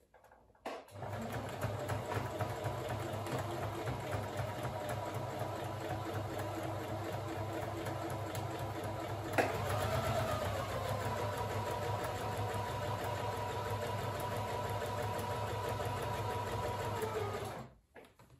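Electric domestic sewing machine stitching a seam, set to a straight stitch that also zigzags. It starts about a second in and runs steadily until near the end. About halfway there is a sharp click, after which its pitch briefly rises and then settles.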